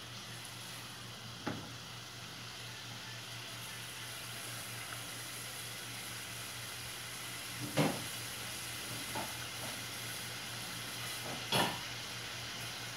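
Tuna mixture, with a little water just added, sizzling steadily in an open pot on the stove. Three short knocks break in: one about a second and a half in, the loudest near the middle, and one near the end.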